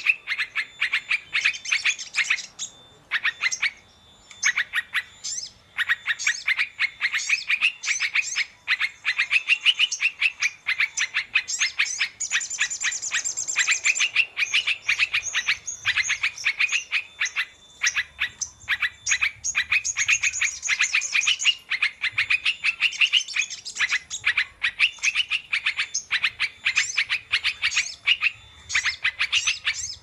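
Yellow-vented bulbul song: quick chattering phrases of chirps, one after another with short pauses between them.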